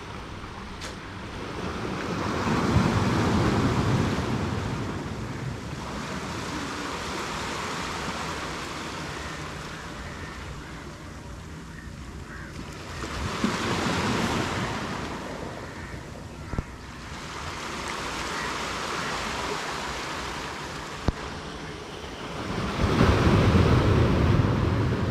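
Sea surf breaking on a beach: the rush of the waves swells and falls back in four surges a few seconds apart, loudest near the start and at the end.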